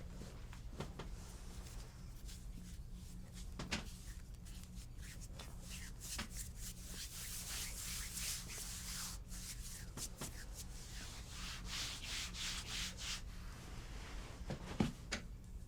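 Hands rubbing over skin in massage strokes: a run of soft swishes that get denser in the middle, with a few light knocks. A steady low hum lies underneath.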